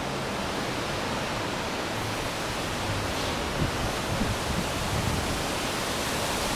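Strong storm wind ahead of a hurricane rushing through large backyard trees, a steady hiss of wind and foliage, with a few faint low gusts bumping the microphone in the middle.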